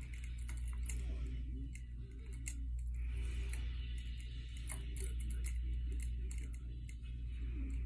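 Pet budgerigars in their cage: scattered light clicks and ticks, with a soft high chattering warble in the middle, over a steady low hum.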